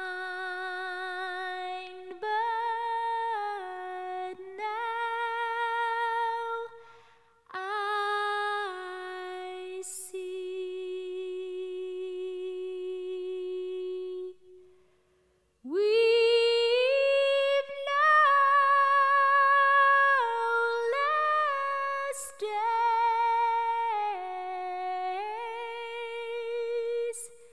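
A woman's voice singing a slow melody unaccompanied, holding long notes with vibrato. About halfway through it stops for roughly a second after a long held note, then comes back louder.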